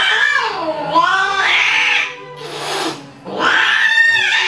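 Cats yowling while mating: two long, wavering yowls, the pitch dipping and rising, with a brief harsh noise between them.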